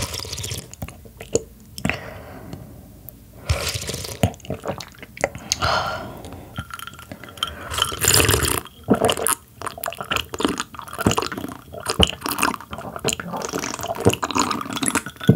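Close-miked eating-show drinking sounds: a slurp of broth from a wooden spoon, then repeated sips and gulps of tea from a glass mug, with swallowing and the glass knocking.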